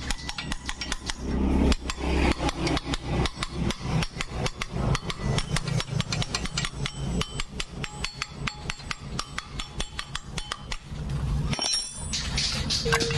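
Rapid metallic clicking and knocking from a Honda Supra's clutch assembly as it is rocked and pressed by hand onto the crankshaft, several clicks a second with a short pause near the end.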